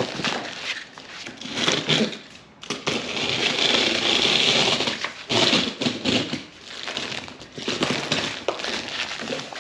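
Cardboard and plastic packaging of a roof-rack crossbar kit being handled and opened, crinkling and rustling in uneven bursts, with one longer steady stretch in the middle.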